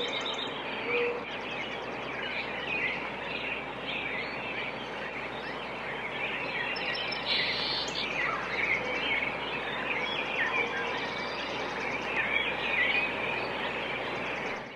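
A dense chorus of many birds chirping at once over a steady background hiss, with rapid high trills now and then.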